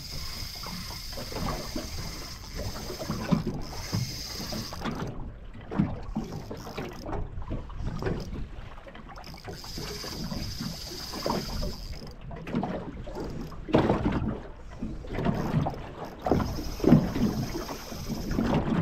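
Wind buffeting the microphone and choppy water slapping against a small boat's hull, with a spinning reel being wound in several spells to retrieve a lure.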